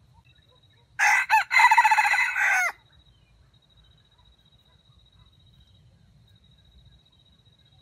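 A red junglefowl (wild chicken) rooster crows once, about a second in. The crow stutters: it breaks off twice in its first half-second, then runs on for about a second and ends abruptly.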